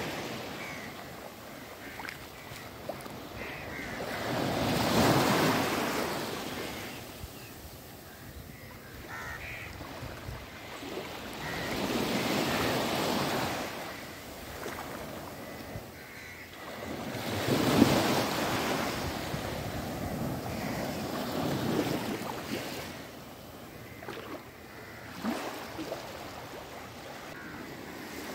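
Small waves breaking and washing up a sandy beach in the shallows, the surf swelling and fading every few seconds.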